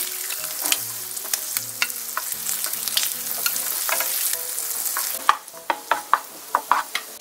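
Butter sizzling in a frying pan with minced garlic, green chili and carrot, while a wooden spatula stirs and taps against the pan. The sizzle drops off about five seconds in, leaving separate sharp spatula taps.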